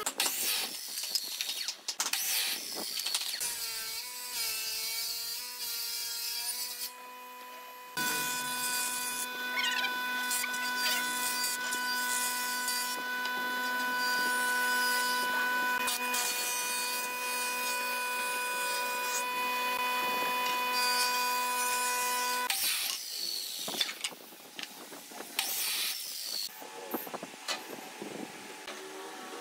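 Woodworking power tools: an electric miter saw cutting a board near the start, then a jointer-planer running with a steady whine for much of the time as boards are fed across its cutter head. Several sharp wooden knocks come near the end.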